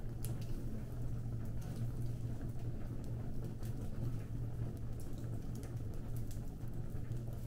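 A fire burning, with irregular sharp crackles and pops several times a second over a steady low hum.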